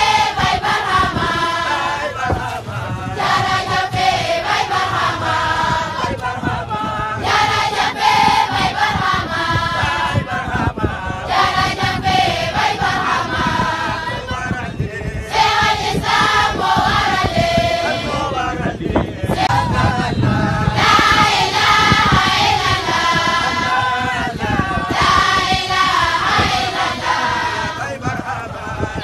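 A group of voices chanting together in unison, a melodic Islamic religious chant sung in long phrases with short breaks between them every few seconds.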